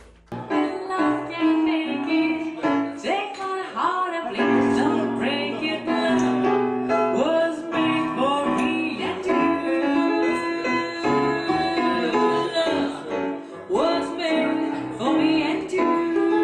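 A woman singing live into a microphone with piano accompaniment; her voice slides between notes over held chords. The music starts after a brief break at the very start.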